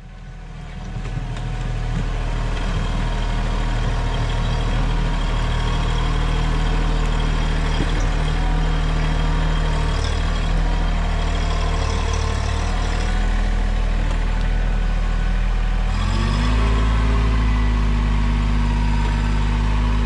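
Mahindra 1626 compact tractor's diesel engine running steadily, fading in over the first couple of seconds; late on, its revs step up and hold higher.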